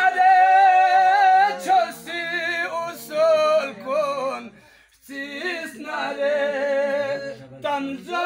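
Male voices singing a manqabat, a devotional song, unaccompanied, with long held, wavering notes and a short break for breath about five seconds in.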